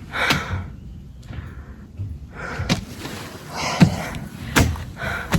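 A person breathing hard in a series of noisy puffs while climbing uphill, with several sharp thumps, four of them in the second half.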